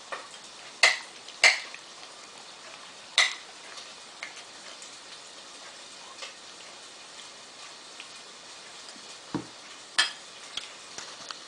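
Cutlery clinking against a plate while eating: three sharp clinks in the first few seconds, then one more near the end, over a faint steady hiss.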